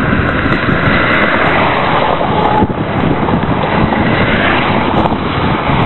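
Strong storm wind buffeting the camcorder microphone: a loud, steady rushing roar.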